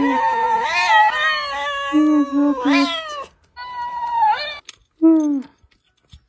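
An agitated cat meows and yowls in a run of drawn-out calls. A mimicking talking dancing-cactus plush toy answers them, replaying the calls at a higher pitch. The calls stop about five and a half seconds in.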